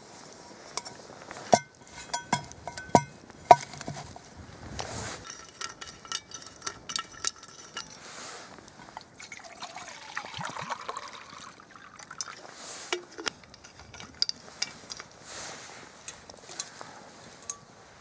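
Steel camping mug clinking and knocking a few times, then liquid being poured into it about ten seconds in.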